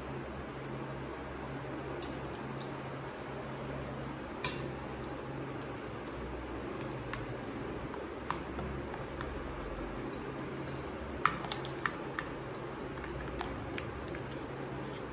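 Metal spoon stirring a wet semolina and yogurt batter in a bowl: soft squelching, with a sharp clink of the spoon against the bowl about four seconds in and a few lighter taps later on.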